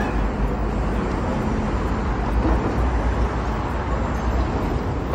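Steady city traffic noise: cars and buses running along a multi-lane road, with a constant low rumble.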